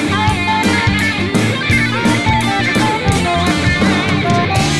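Rock band music: electric guitar playing over a steady drum kit beat.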